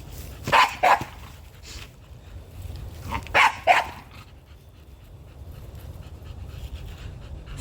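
Dog barking: two quick barks about half a second in, then two more about three and a half seconds in.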